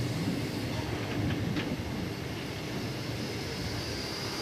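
Passenger train coaches rolling past with a steady low rumble of wheels on the rails, with a couple of faint clicks in the middle.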